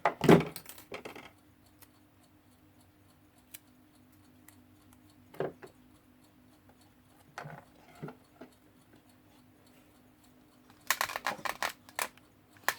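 Adhesive tape being pulled off its roll and torn in short crackling bursts, once at the start and again near the end, with a few light clicks of handling in between.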